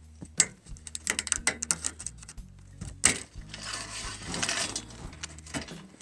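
Snips cutting green plastic banding straps on a steel-framed shipping crate: sharp snaps and a quick run of clicks, with a longer scraping rustle about four seconds in.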